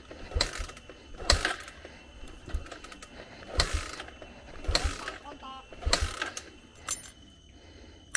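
Motorcycle kick-starter being kicked over and over, about once a second, with a ratcheting clank on each stroke. The engine does not catch: the motorcycle won't start.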